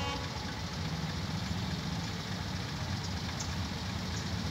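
Engines of waiting CNG auto-rickshaws idling with a steady low hum.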